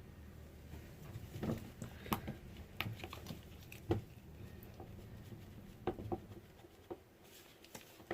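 Scattered light clicks and taps of soap-making containers and utensils being handled on a work surface, a few sharper knocks about two and four seconds in.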